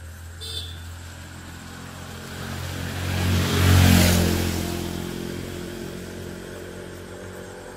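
A motor vehicle passing by, its engine and road noise growing louder to a peak about four seconds in and then fading away.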